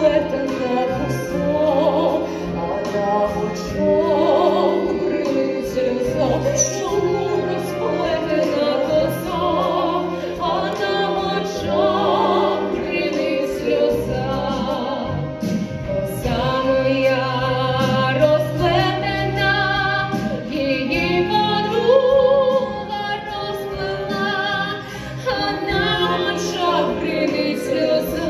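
Operatic singing by women's voices over a sustained orchestral accompaniment, in a theatre hall.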